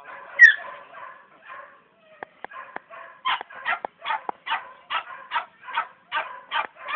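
Podenco puppies yapping: a sharp high yelp about half a second in, then a steady run of short barks, two or three a second.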